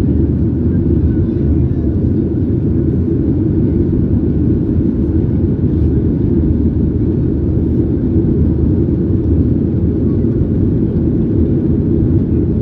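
Steady low rumble of engine and airflow noise inside the cabin of a Boeing 737-800 in flight, from its CFM56-7B turbofans and the air rushing past the fuselage.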